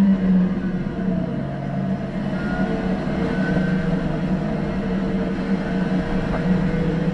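Lotus Exige's engine and exhaust heard from inside the cockpit, holding a steady drone with a slight dip about a second in, over wind and tyre noise.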